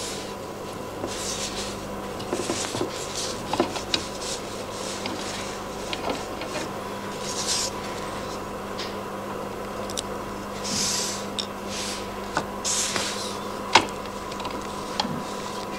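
Tubular-frame hacksaw being taken apart by hand: its brass wing nut is turned off the tensioning screw, giving scattered small metal clicks and short scraping rubs. A steady faint electrical hum lies underneath.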